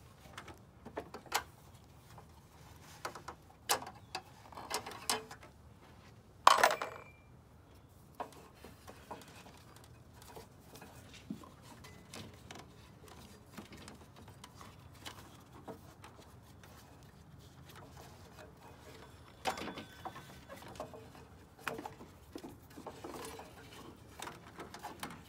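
Scattered metal clinks and knocks of a wrench being lifted off the belt tensioner bolt and a serpentine belt being pulled off its pulleys, the loudest a single sharp clack about six seconds in. A quiet stretch follows, then more light clicking and rubbing near the end as the belt is worked loose.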